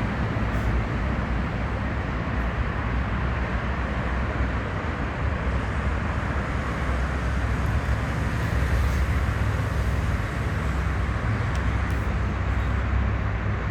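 Steady outdoor background noise: a continuous low rumble with hiss, unbroken throughout.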